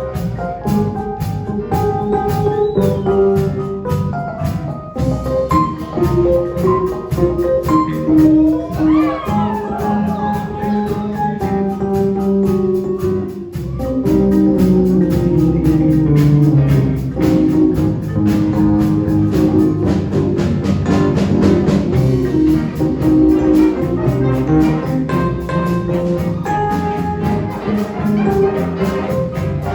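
Junior high school jazz band playing, with saxophones over keyboard, bass and drums. There is a brief drop about thirteen seconds in, then the full band comes back in louder.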